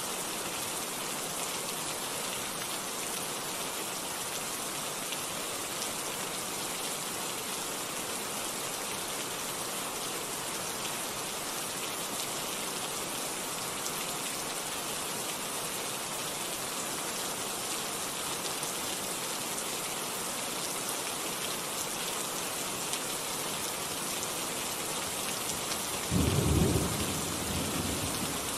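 Steady rain falling, an even hiss of drops. Near the end a sudden low clap of thunder breaks in, the loudest sound here, and fades over about two seconds.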